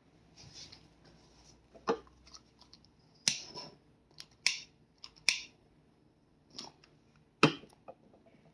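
Tarot or oracle cards being handled: about half a dozen sharp, irregular snaps and taps as cards are flicked, shuffled and set down.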